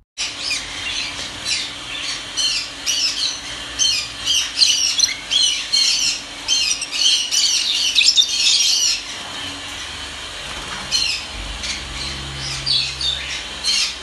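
Several caged lovebirds chattering with rapid, high-pitched squawks and chirps, a thick overlapping flurry for about nine seconds that thins out to scattered calls near the end.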